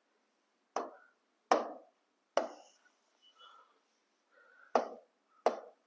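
Five sharp taps of a pen on an interactive smart-board screen, irregularly spaced, each with a short fading knock.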